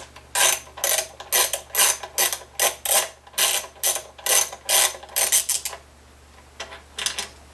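Ratcheting hand tool working the hardware of an old Gibson Deluxe tuner on a guitar headstock: a regular run of short rasping ratchet strokes, about three a second, for nearly six seconds. Then a pause and a few shorter clicks near the end.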